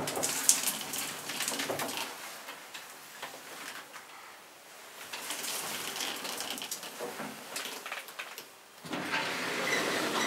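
StavoLift elevator car travelling slowly upward, heard from inside the cab: a steady running hiss with scattered clicks and rattles. It dips quieter about four seconds in and grows louder again near the end.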